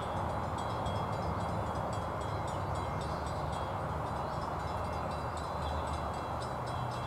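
Steady outdoor background drone with a low rumble underneath and faint high chirps and ticks, unchanging in level.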